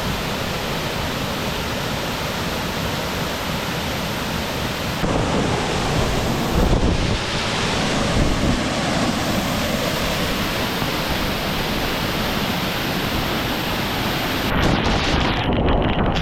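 Waterfall close by: a loud, steady rush of falling water that gets heavier about five seconds in. Near the end the highest part of the rush drops in and out.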